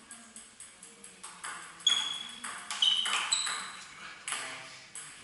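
Table tennis rally: the ball clicks sharply off the bats and the table, loudest about two seconds in and again around three and four seconds. Under it runs a faint, even ticking of about three clicks a second.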